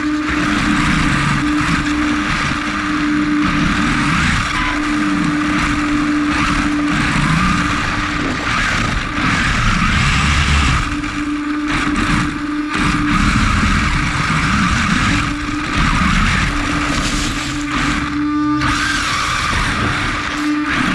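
Onboard sound of an HSP XSTR Pro electric RC car driving on a 3-cell LiPo: the motor whines, rising and falling in pitch as the car speeds up and slows, over the noise of the tyres on concrete, leaves and grass. A steady tone runs underneath, and the sound briefly drops away near the end.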